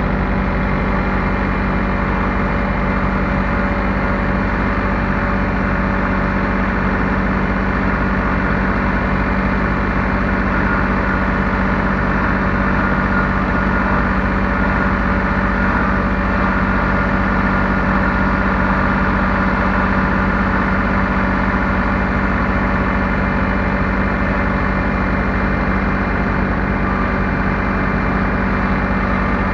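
Heavy equipment engine running steadily and loud at an even speed, with no revving.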